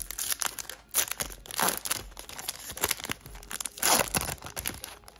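Foil wrapper of a 2022 Topps Series 1 baseball card pack being torn open at its crimped seal and pulled apart, a run of irregular crinkling rips and crackles, the sharpest about a second in and near the end.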